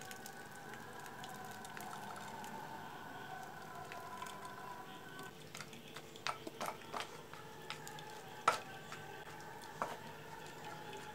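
Cooked cherries and syrup sliding from a pot into a mesh sieve over a steel pot, then a wooden spoon stirring and pressing the cherries in the sieve to strain the juice. The spoon makes soft scrapes and a few short knocks against the strainer, the sharpest about eight and a half seconds in.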